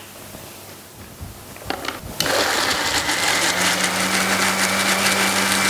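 Electric mixer grinder switched on about two seconds in and running steadily, its small jar grinding garlic, kiwi, pepper and olive oil into a wet marinade paste.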